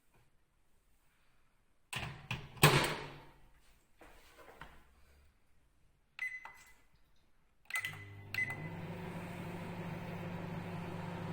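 Microwave oven being loaded and started: a few knocks and a loud thud as the door is shut, short keypad beeps, then the oven starts and runs with a steady low hum.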